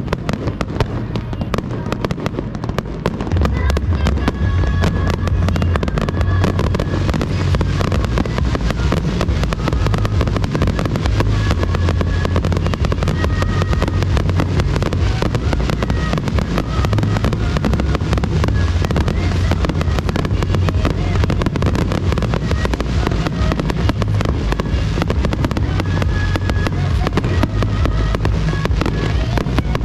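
A fireworks finale barrage: aerial shells bursting in a rapid, unbroken stream of booms and crackling, with a deep rumble. It grows louder and denser about three seconds in.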